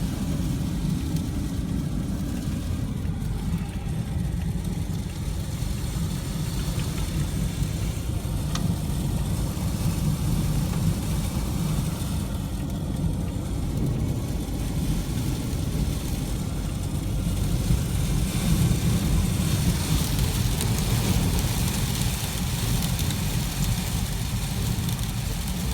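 Strong sandstorm wind buffeting the microphone as a steady low rumble. A higher hiss grows from about twenty seconds in.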